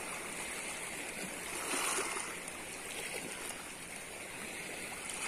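Steady rush of open water lapping around a man wading waist-deep, with a few faint small splashes.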